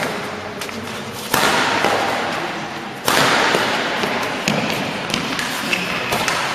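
Badminton rally: sharp clicks of rackets striking the shuttlecock and thuds of players' footsteps on the court. A noisy background swells suddenly twice, about a second in and again about three seconds in.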